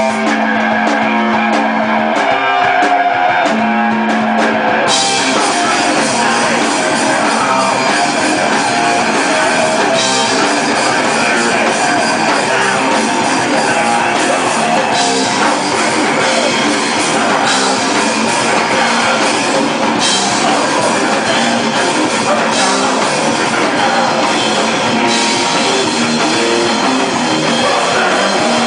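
Hardcore rock band playing live and loud: electric guitar holding a sustained note for the first few seconds, then the drum kit and crashing cymbals come in with the full band about five seconds in.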